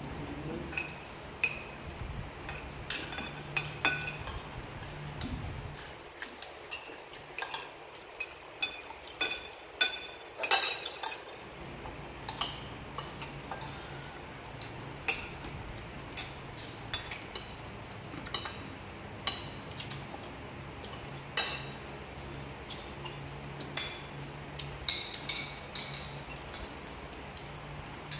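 Metal spoons clinking and scraping on ceramic plates and bowls as several people eat, in a scatter of irregular sharp clinks, some ringing briefly.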